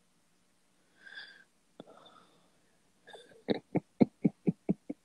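A man laughing into a close microphone: a run of about eight short, breathy pulses, about four a second, starting about three seconds in after a faint breath.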